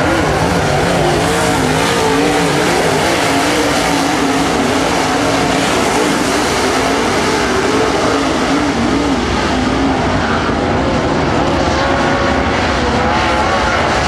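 A pack of dirt super late model race cars racing around the track, their V8 engines loud and steady, with the engine pitch wavering up and down as the cars go through the turns.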